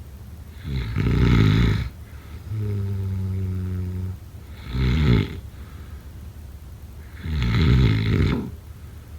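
Snoring in loud rasping snores: one about a second in, a shorter one around the middle and a longer one near the end. A steady low hum of about a second and a half falls between the first two.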